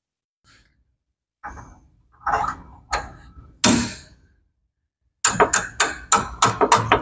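Metal tool knocking on a forklift steering knuckle as the old, cut-through bronze bushing is worked out of its bore: a few separate knocks, then a quick run of sharp metallic taps, about four a second, from about five seconds in.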